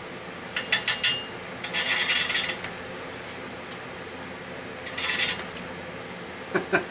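A valve being hand-lapped into its seat with 280-grit lapping compound, the suction-cup lapping stick twisted back and forth: a gritty rasp of valve face grinding against seat in three short bouts, with a few sharp clicks about a second in and again near the end.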